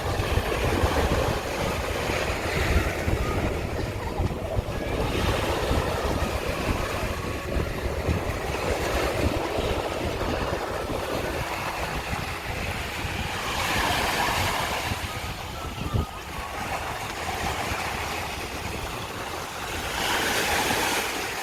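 Wind rumbling on the microphone over a rushing noise that swells and ebbs every few seconds.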